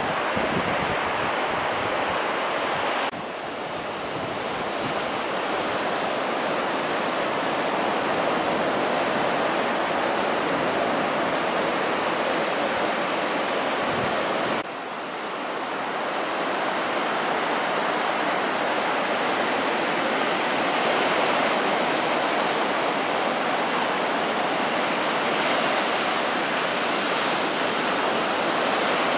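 Surf breaking and whitewater washing toward the shore, a steady rush of water. The level drops suddenly about three seconds in and again about halfway through, then builds back up.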